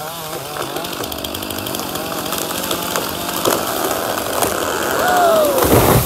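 Chainsaw idling as a tree goes over: wood cracking and branches crashing, growing louder, ending in a heavy thud as the trunk hits the ground near the end.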